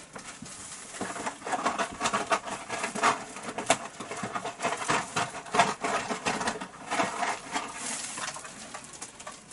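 Crinkling, rustling and clicking of Hot Wheels blister-card packaging being handled and rummaged, in quick irregular bursts.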